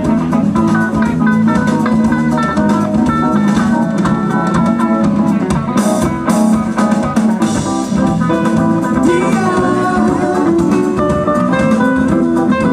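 Live band playing jazzy dance music: electric guitars and bass guitar over a drum kit, with no singing.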